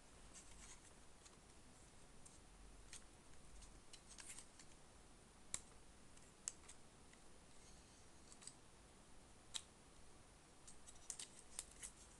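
Faint, scattered sharp plastic clicks and snaps from a Transformers action figure's joints and parts being moved and pegged into place while it is transformed. The clicks come irregularly, with a quick run of several near the end.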